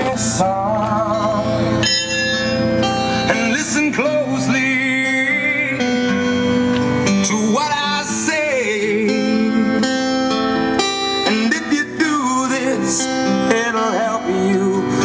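Country song with singing and guitar, including steel guitar, played loud on a truck's car-audio system: a Rockford Fosgate amplifier driving four 12-inch T1 subwoofers.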